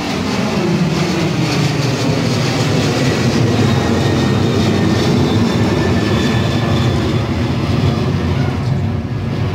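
Twin-engine jet airliner's engines at climb power as it pulls away overhead: a loud, steady low rumble, with a drone that falls in pitch in the first couple of seconds.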